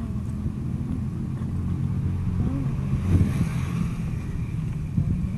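Street noise: a low, uneven rumble throughout, with a vehicle passing by between about three and four and a half seconds in.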